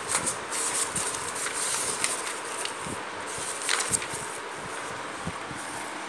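Paper notebook being handled: pages rustling, with a few light knocks and clicks as it is lifted and moved, the sharpest just before four seconds in. After that only a steady faint hiss remains.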